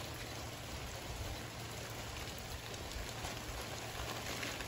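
Steady hard rain falling, an even hiss of drops hitting the ground and surfaces.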